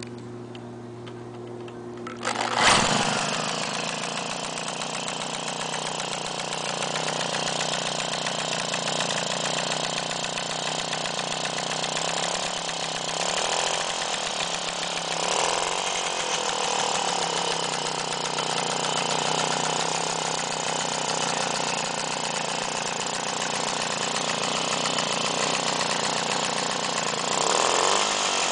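Cordless drill spinning over a Puch Maxi moped's 49 cc two-stroke engine with a steady whine; a little over two seconds in the engine catches with a loud pop and then runs on its own, its speed rising and falling a few times as the throttle is worked.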